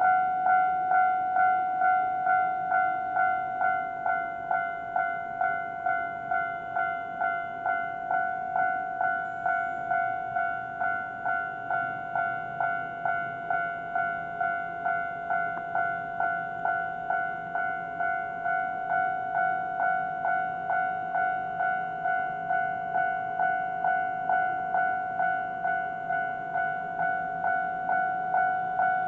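Japanese railway level-crossing warning bell ringing: a bright electronic chime struck in an even rhythm of about two strikes a second, continuing without a break. A faint low hum comes in underneath from about ten seconds in.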